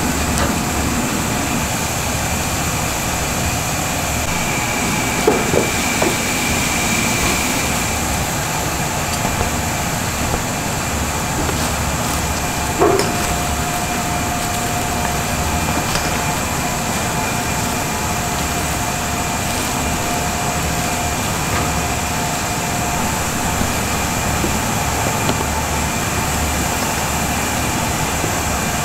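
Steady mechanical hum of kitchen machinery with a low rumble and a few steady tones, and a few light knocks from handling about five, six and thirteen seconds in.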